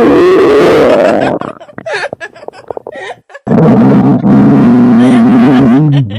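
Two long, loud, exaggerated stomach-growl sound effects. The first rises in pitch, the second holds a low, steady pitch, and short broken sounds come between them.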